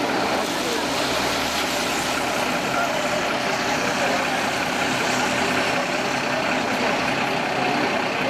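Diesel engine of a fire-brigade turntable ladder truck running steadily.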